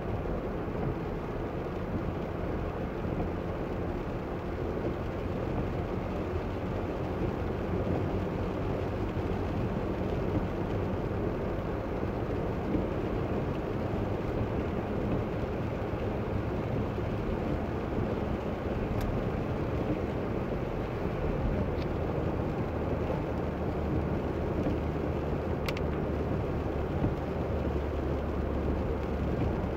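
Steady road noise inside a moving car: tyres running on wet pavement over a low engine and cabin hum. The low rumble grows stronger near the end.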